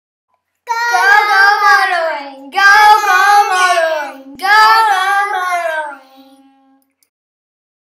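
A high voice singing a short unaccompanied intro jingle: three phrases with vibrato, each sliding down in pitch, with brief breaks between them, ending about six seconds in.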